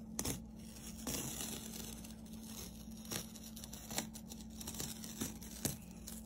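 Blue painter's tape being peeled off a painted canvas: a faint peeling sound with several small ticks along the way.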